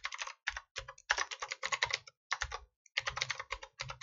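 Computer keyboard typing: quick runs of keystrokes broken by short pauses.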